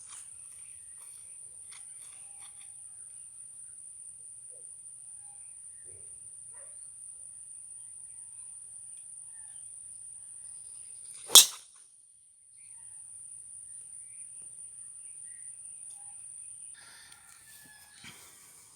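A single sharp crack of a golf club striking the ball on a tee shot, about eleven seconds in. A steady high-pitched whine runs underneath.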